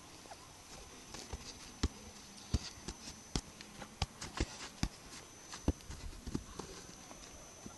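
Soccer ball being juggled and kicked with the feet: an irregular run of dull knocks as the shoe strikes the ball, most of them between about one and six and a half seconds in.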